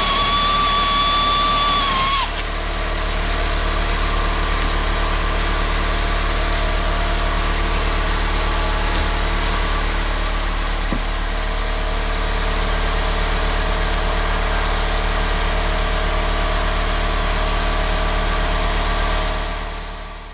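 Air-powered angle grinder running with a steady high whine that cuts off abruptly about two seconds in, leaving a steady low mechanical hum that fades out near the end.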